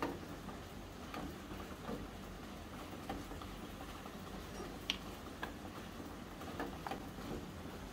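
Light clicks and taps of tiny metal trays and a miniature toy fridge being handled, the trays set down on a wooden block, with one sharp click about five seconds in.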